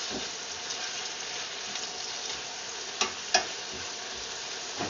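Vegetables sizzling in a hot pan while being stirred and scraped with a spatula. Two sharp knocks of the spatula against the pan come close together about three seconds in.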